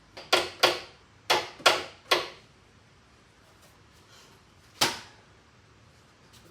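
A quick series of six sharp knocks or taps, each ringing briefly, then a single knock a few seconds later.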